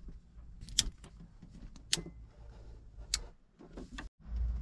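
Sharp metallic clicks, three of them about a second apart, as the decompression levers on a small marine diesel engine are flipped closed by hand, getting it ready to start. A steady low hum starts near the end.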